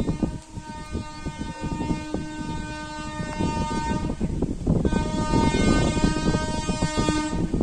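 Horn of an approaching WAP-7 electric locomotive sounding two long blasts: the first stops about four seconds in, the second starts just before five seconds and stops near the end. Wind buffets the microphone throughout.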